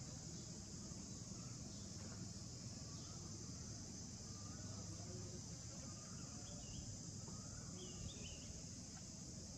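Steady high-pitched drone of an insect chorus, crickets or cicadas, over a low outdoor rumble, with a couple of faint short chirps about two-thirds of the way in.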